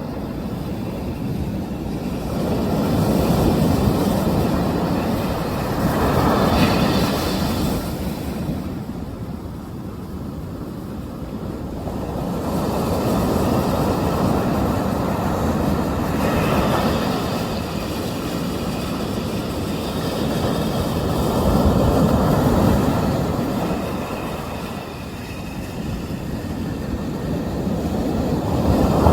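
Sea surf: waves breaking and washing up the shore in a continuous roar that swells and eases every several seconds.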